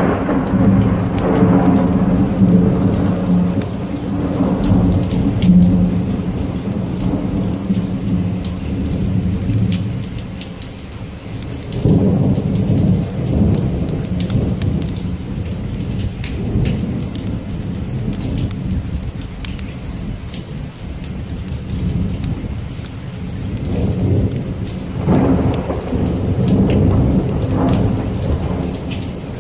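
Steady rain falling with rolling thunder. The thunder swells near the start, again about twelve seconds in, and once more about twenty-five seconds in.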